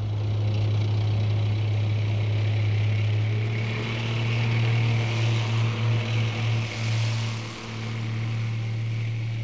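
Tank engine and tracks running past: a steady low drone with track noise that swells in the middle.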